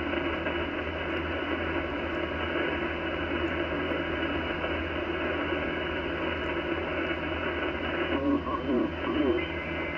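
Icom IC-756PRO HF transceiver's speaker receiving the 40-metre band in lower sideband: a steady hiss of band noise and static, cut off above about 3 kHz, with a low hum beneath. About eight seconds in the hiss thins as the dial is tuned, and faint garbled voice fragments come through.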